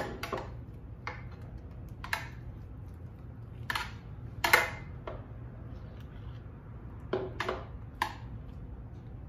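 Spoon spreading tomato sauce across a crust in a metal baking pan, scraping and tapping against the pan and the sauce bowl: about eight short scrapes and taps, the loudest about halfway through.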